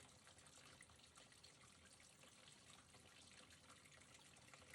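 Faint running tap water trickling and dripping, flushed through a diesel heater's soot-clogged heat exchanger to wash out the soot.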